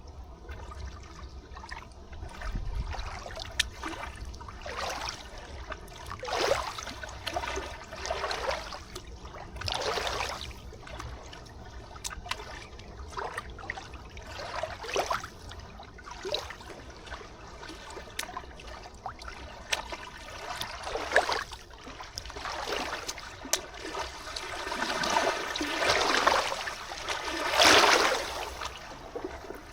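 River water lapping and trickling in uneven washes every second or two, with a stronger splash near the end.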